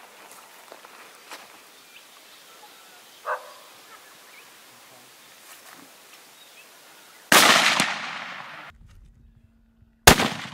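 Two hunting-rifle shots about three seconds apart, each a sharp crack. The first trails off in a long rolling echo. Before them is only faint bush background.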